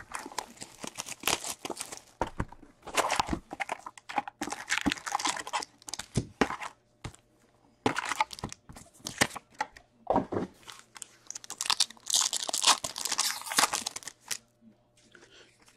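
Plastic wrapping on a hockey card box and its packs being torn and crinkled: shrink-wrap ripped off the box and the lid opened, then a card pack torn open. The sound comes in irregular bursts of rustling and tearing, with the longest burst near the end as the pack is ripped.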